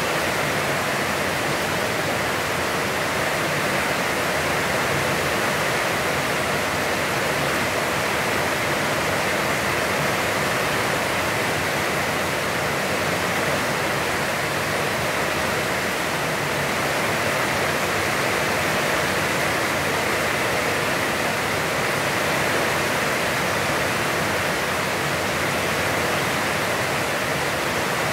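Heavy, constant rain falling, heard as a steady, even hiss with no breaks.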